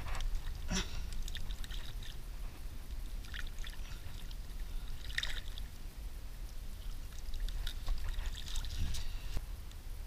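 Shallow water splashing and sloshing in short, irregular bursts as a chain pickerel is swished through it on a lip grip to rinse it off, over a steady low rumble.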